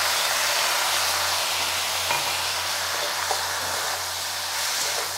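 Onions, tomatoes, bell pepper and green chillies sizzling in oil in a hot pan as yogurt and coriander are stirred in with a metal spatula: a steady frying hiss with a few light spatula scrapes.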